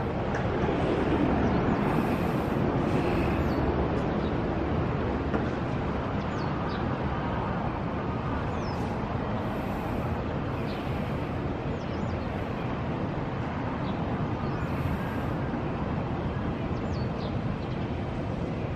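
Road traffic noise: a steady hum of cars, swelling as a vehicle passes about a second or two in, with brief high chirps, likely small birds, scattered over it.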